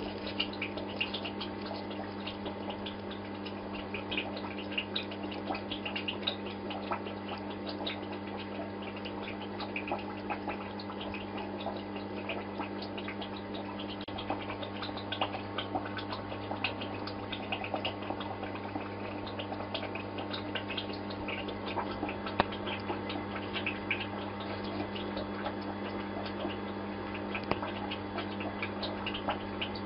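Steady low hum of aquarium equipment, with continual small crackles and ticks of bubbling water.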